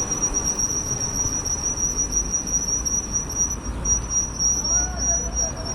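A steady high-pitched whine, wavering slightly, that drops out briefly about two-thirds of the way through, over a low rumble of wind on the microphone while riding.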